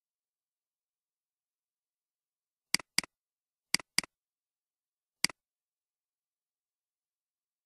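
Computer mouse clicking: two quick double-clicks a little under a second apart, then a single click, each a short sharp press-and-release.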